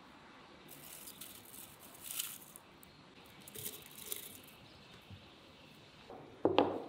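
Herb leaves rustling and crackling in two spells as handfuls are dropped into a glass teapot, then a single sharp knock near the end.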